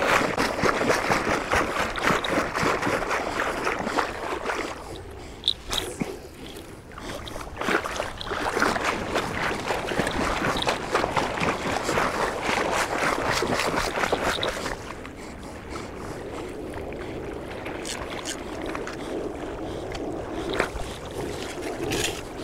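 Shallow lake water sloshing and lapping in a steady irregular wash. It is louder for the first two thirds and turns quieter about fifteen seconds in.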